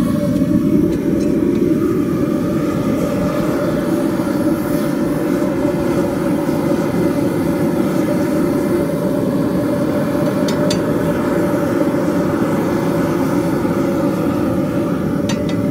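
Small copper-melting furnace running hot: a steady, low rushing noise.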